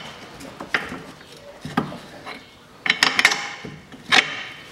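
Sharp metallic clinks and knocks of hand tools and a bolt against a car's front steering knuckle as the bolt is fitted, a few single ones and a quick cluster about three seconds in.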